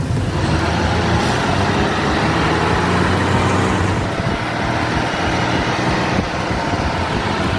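Heavy-haul truck engine running steadily under load, with road and traffic noise.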